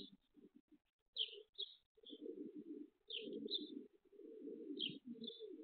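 Pigeons cooing in repeated, rolling phrases, with short high chirps of small birds coming in pairs three times.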